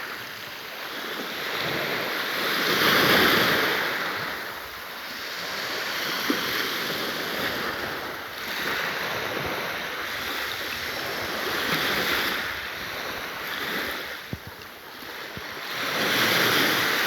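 Sea waves washing onto the shore, the surf swelling and falling away every few seconds.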